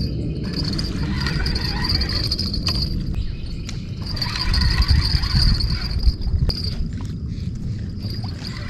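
Spinning fishing reel being cranked by hand over a low rumble, with a steady high insect trill that cuts out briefly a few times.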